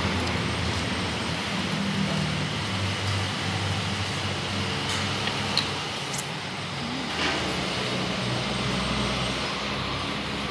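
Steady low rumble of background noise, with a few short clicks and a noodle slurp near the middle.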